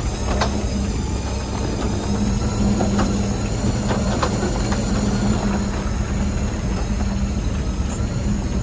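4x4 off-road vehicle's engine running steadily at low speed, with a few faint light knocks.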